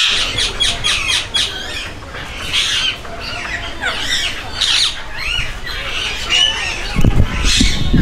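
Caged aviary birds calling: a dense, overlapping chatter of short chirps and squawks, many bending up and down in pitch. A low rumbling noise joins in near the end.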